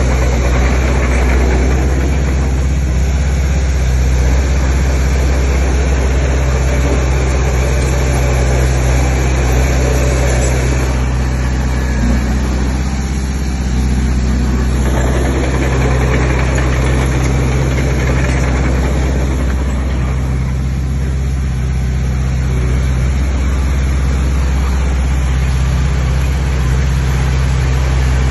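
Heavy diesel engine of earthmoving machinery running steadily, with a constant low drone and a noisier layer above it that rises and eases now and then.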